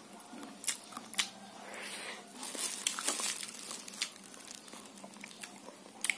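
Plastic wrapping crinkling and rustling as fried cakes are handled and pulled apart by hand, with a few sharp crackles and a louder stretch of rustling about two to three seconds in.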